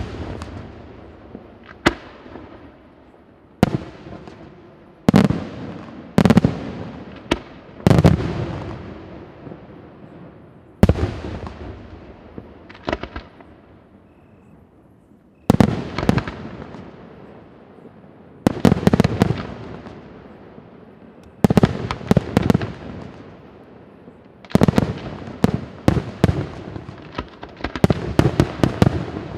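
Aerial firework shells bursting one after another, each bang followed by a long rolling echo. There is a quieter lull midway, then a rapid volley of bursts near the end.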